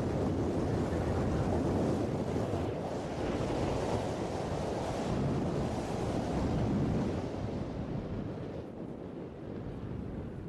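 Wind buffeting the camera microphone while skiing, a rough low rushing that eases off near the end.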